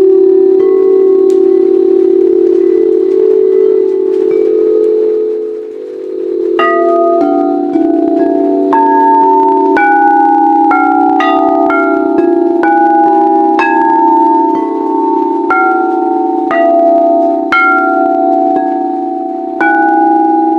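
Singing bowls: a steady, held humming tone, then from about six seconds in, bowls struck one after another roughly once a second, each note ringing on over the hum.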